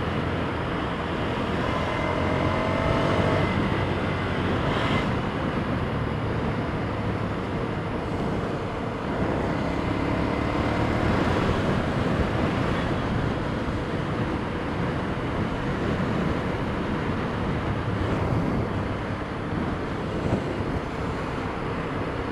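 Motorcycle running slowly in dense road traffic, with steady traffic and engine rumble and wind on the microphone.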